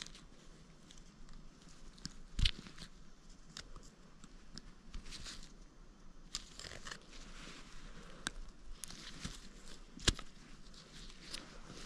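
Quiet handling of a removed, damaged ball bearing and small motor parts: scattered light clicks and rustles, with two sharper knocks, one about two and a half seconds in and one near ten seconds.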